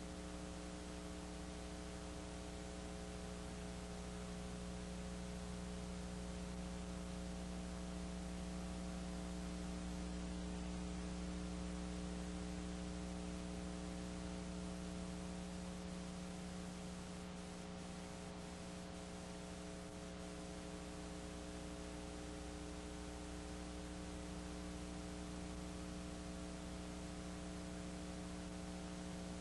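Steady electrical mains hum, a buzz of several stacked tones, with hiss over it and nothing else to be heard.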